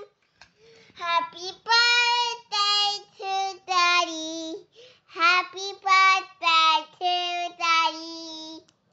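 Children singing unaccompanied in high voices, a series of held notes with short breaks between them.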